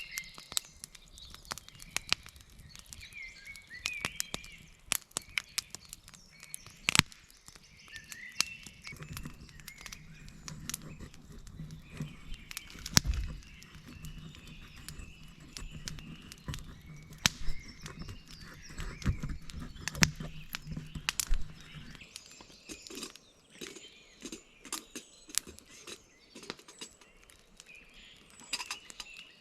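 Birds chirping over frequent sharp clicks and cracks, with a low steady hum through the middle stretch.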